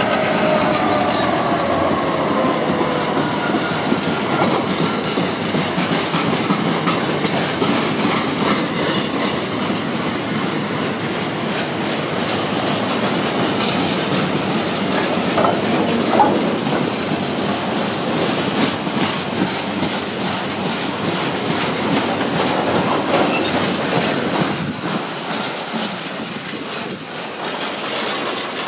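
Freight train of empty open steel wagons running past behind a Class 66 diesel locomotive, its wheels rumbling and clicking over the rail joints, with a brief wheel squeal partway through. The locomotive's two-stroke diesel engine note falls away at the start as it passes, and the rumble eases off near the end as the train draws away.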